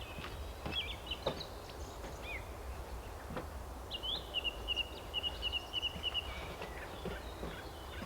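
Songbirds singing and chirping, with a rapid trill of quick repeated notes from about four to six seconds in, over a steady low outdoor rumble.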